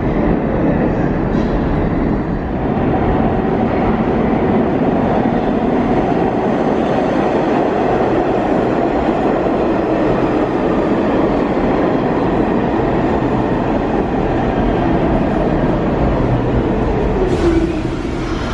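NYC subway train of R46 cars pulling into the station and braking, a loud steady rumble of wheels on rail. Near the end a faint falling squeal comes in, followed by a brief sharp burst of hiss as the train slows.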